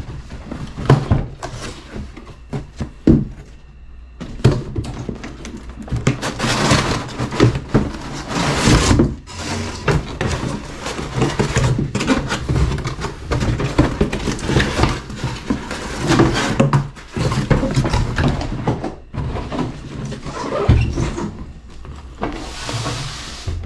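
Cardboard box and packaging being opened and handled: irregular rustling and scraping with knocks and clicks.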